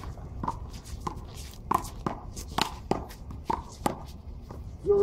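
Handball rally: a small rubber ball smacked by gloved hands and rebounding off a concrete wall, heard as a string of sharp smacks at irregular intervals, with players' footsteps and shoe scuffs on the concrete court.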